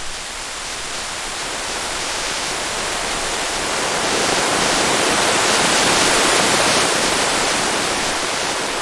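Heavy steady rain, a dense even hiss that swells gradually louder toward the middle.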